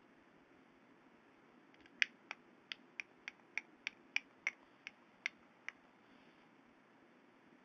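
A run of about a dozen sharp clicks, roughly three a second, over a faint steady background hum.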